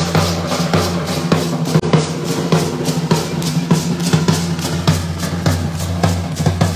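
Large double-headed drum beaten with a stick in a steady dance rhythm, about three strokes a second, accompanying a matachines-style danza.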